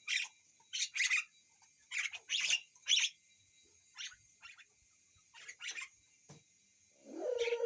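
Hill myna mimicking a person's coughing: about a dozen short, breathy cough-like bursts, unevenly spaced. Near the end it gives a longer pitched, voice-like call.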